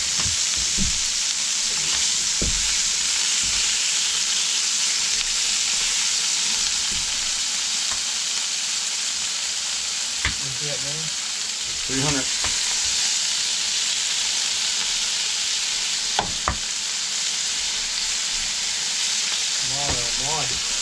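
Leftover moose meat sizzling steadily as it fries in a skillet, with a few scattered clicks.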